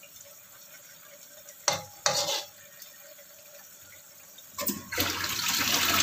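A couple of sharp knocks of kitchenware, then about five seconds in, water from a kitchen tap starts running with a steady rush.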